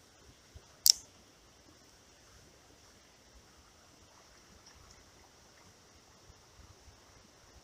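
A single sharp click from a spinning reel about a second in, as a cast goes out, over a faint steady high hiss.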